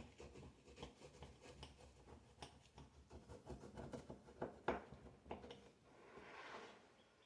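Faint knife cutting through baked pie crust: soft crunching and scraping against the pie dish, with a few sharper clicks in the middle.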